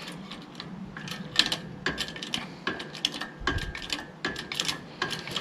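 Hand-pumped hydraulic engine hoist being jacked up, its pump handle and linkage giving a run of metallic clicks with short squeaks, about two strokes a second; the newly fitted cylinder is being raised to work air bubbles out of it.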